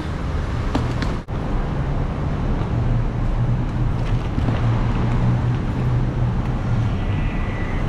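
Steady roadside traffic noise with a low engine hum from vehicles nearby, cutting out for an instant about a second in.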